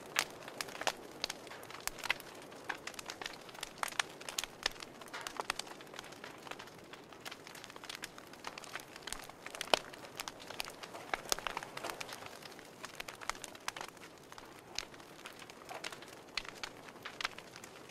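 Wood fire crackling, with irregular sharp snaps and pops.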